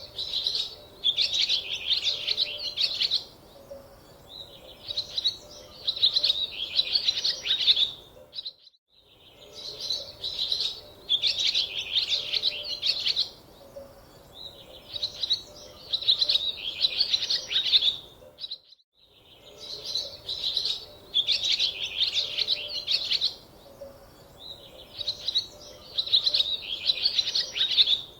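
Birds chirping and singing in high bursts of a second or two, repeating with short pauses. The sound cuts out completely twice, about eight and nineteen seconds in.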